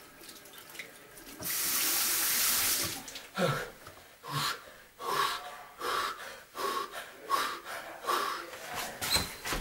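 Bathroom sink tap running for about a second and a half, then a string of short, sharp cries from a man, about nine of them.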